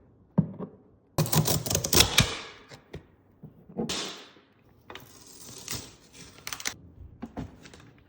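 Packaging being lifted out of a printer box: a few knocks and clicks, two longer stretches of scraping and rustling, and a short sliding scrape in the middle.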